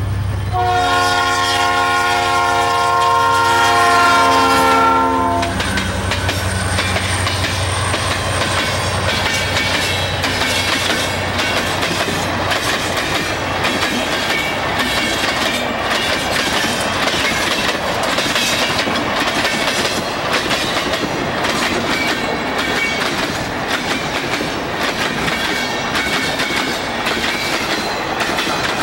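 EMD GT22 diesel locomotive sounds its multi-tone horn for about five seconds as it approaches, its engine hum passing soon after. A long string of empty tank cars then rolls past at speed, wheels clacking rhythmically over the rail joints.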